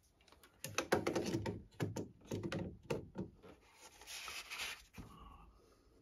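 Hands fitting a new water pressure sensor into a Vaillant ecoTEC Pro 24 boiler: a run of quick clicks and scrapes of plastic and metal parts as the sensor is slid in from the side, then a brief rustle near the end.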